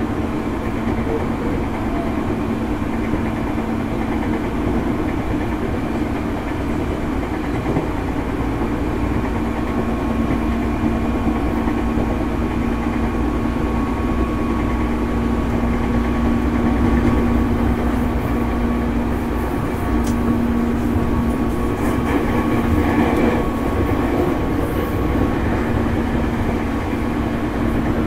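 JR East 205 series electric train running between stations: a steady hum from its DC traction motors over the rumble of wheels on rail, heard from on board, swelling a little in the second half.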